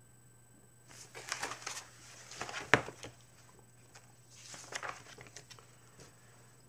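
Paper rustling as a book is handled and its pages turned, in two bouts, with one sharp tap partway through.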